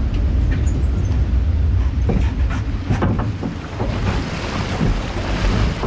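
Log flume boat riding in its water trough, water rushing and splashing around the hull, with a low wind rumble on the microphone. The low rumble is strongest at first, and the water noise grows about two seconds in.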